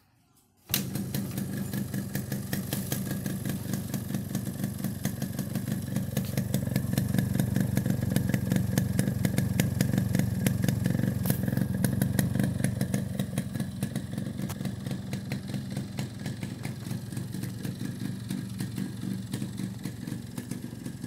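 Yamaha RX 100's two-stroke single-cylinder engine running with a rapid, even beat on its first start after restoration. It comes in suddenly about a second in, runs a little louder for several seconds in the middle, then settles to a steady idle.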